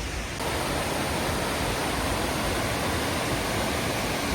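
Waterfall rushing: a steady hiss of falling water that grows a little louder and brighter about half a second in.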